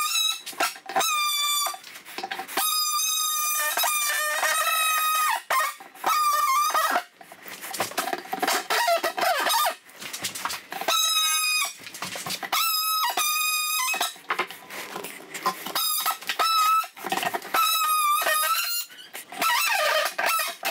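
DeWalt cordless oscillating multi-tool cutting into a 3/4-inch plywood subfloor to take out a small sample piece. It gives a high buzzing whine that starts and stops in repeated bursts of one to two seconds, with short pauses between.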